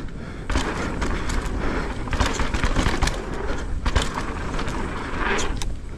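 Santa Cruz Megatower full-suspension mountain bike descending a trail: tyres rolling over dirt and rocks with irregular clatters and knocks from the bike, under a steady rushing rumble of wind on the microphone.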